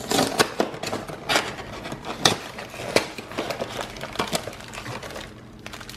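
Hands handling a cardboard snack-cake box and drawing out a cellophane-wrapped cake: irregular taps, scrapes and crinkles of cardboard and plastic wrap, fewer near the end.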